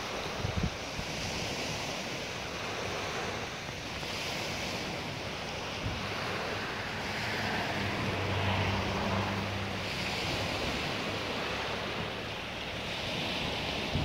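Small waves washing and breaking onto a pebble beach, the surf swelling and easing, with wind rumbling on the microphone. A faint low hum comes in about halfway through and fades a few seconds later.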